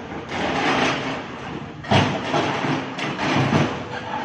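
Heavy machinery running with a dense rumble and irregular clanks and knocks, the loudest about two seconds in.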